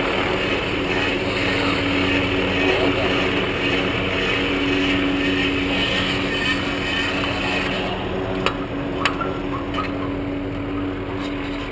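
A helicopter running steadily at a distance, a constant hum over a hiss that eases slightly after about eight seconds. Two sharp clicks come about eight and a half and nine seconds in.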